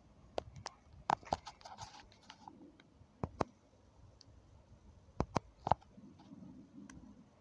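Irregular sharp clicks and taps close to the microphone, about a dozen in all, with a short run of scraping about one to two seconds in, over faint outdoor background noise.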